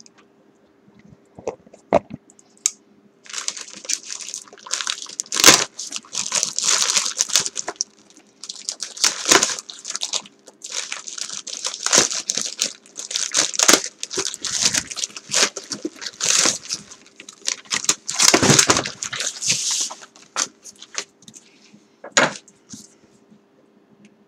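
A cardboard shipping box being cut and torn open with a knife: packing tape slit and ripped, cardboard scraping and crinkling in long scratchy stretches, broken by sharp knocks. A faint steady hum sits underneath.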